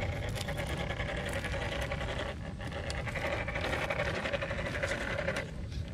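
Scale RC rock crawler's electric motor and geared drivetrain whining steadily as it crawls over stones, stopping about five and a half seconds in.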